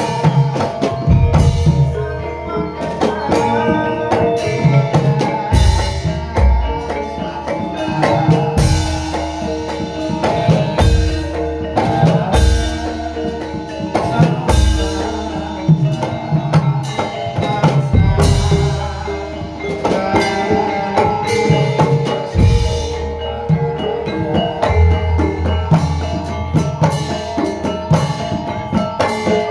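Javanese gamelan music: bronze gongs and metallophones ringing steadily over irregular deep drum strokes.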